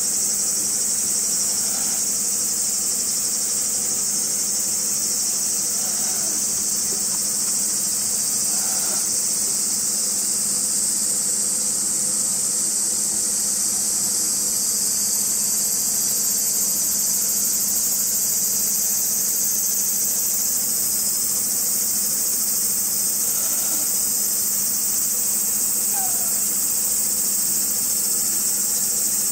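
Loud, steady high-pitched insect chorus of crickets or cicadas, with a few faint short mews from a calico kitten, one falling in pitch near the end.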